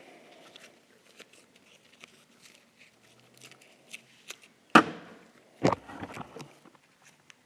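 Handling noise at a painting table: light scattered clicks and taps, then two louder knocks about five and six seconds in, as objects are picked up and set down.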